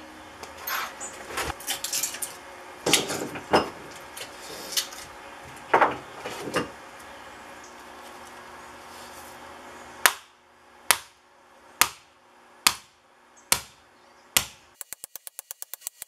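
Irregular sharp knocks and scrapes of a metal tool chiselling and prying apart a transformer. About ten seconds in, six even blows, roughly one a second, of a hatchet striking the transformer's steel core, each ringing briefly; near the end, a fast, even run of clicks.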